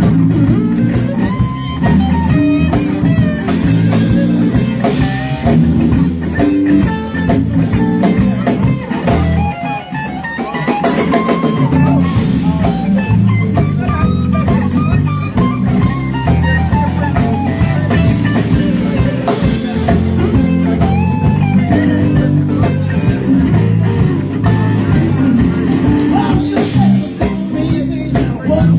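Live band playing a blues-rock number: a guitar line with bending notes over bass and a drum kit, at a steady loud level.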